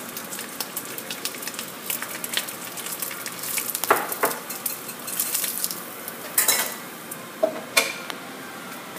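Bacon sizzling and crackling in hot grease in a frying pan, with a few louder clinks of a utensil against the pan as the strip is lifted out, about four seconds in and twice more near the end.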